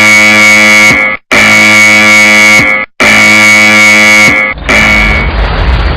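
Earthquake warning alarm sounding three long, harsh buzzing tones with short gaps between them. A low rumbling earthquake sound effect rises under the third tone, about four and a half seconds in, and takes over.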